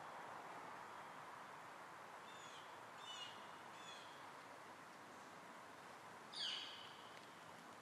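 Faint steady outdoor background hiss with small birds chirping: a few short falling chirps in the middle, then one louder call sweeping down in pitch near the end.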